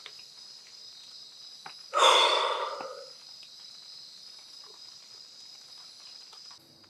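Evening chorus of crickets, bell crickets among them, ringing steadily and high-pitched. About two seconds in comes a loud breathy exhale like a sigh, fading over about a second. The chorus cuts off shortly before the end.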